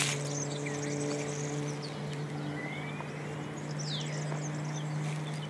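Steady, even drone of a light propeller plane's engine, holding one pitch, with a few short bird chirps over it.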